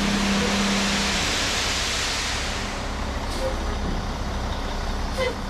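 The diesel engine of an International HX620 dump truck running steadily with a low hum. A broad hiss over it eases off about halfway through.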